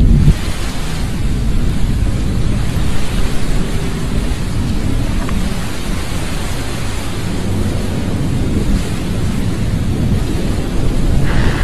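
Storm ambience: a heavy, steady thunder-like rumble with a rain-like hiss over it, swelling louder and brighter near the end.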